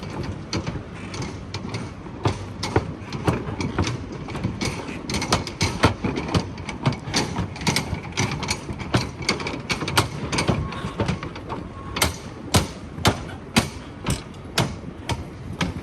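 Footsteps clicking on hard paving, many overlapping at first, then a steady run of sharp steps about two a second near the end, with faint background chatter.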